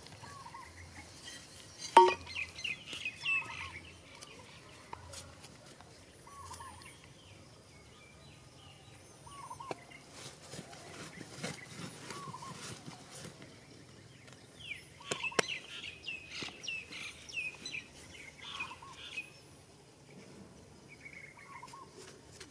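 Hands scraping and brushing dry soil, with a sharp knock about two seconds in and another a little past the middle. Birds call throughout: a short call repeats every second or two, with bursts of quick chirping near the start and in the second half.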